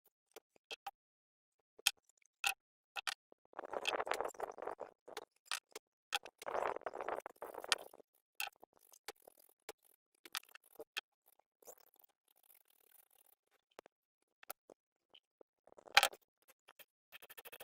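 Light clicks and taps of tools and metal parts being handled, with two short stretches of scraping or rubbing about four and seven seconds in, and a sharp knock near the end.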